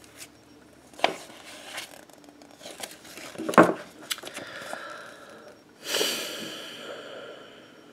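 Paper pages of a CD lyric booklet being flipped by hand: light rustling with two sharp clicks, then a longer rustle of paper about six seconds in that fades away.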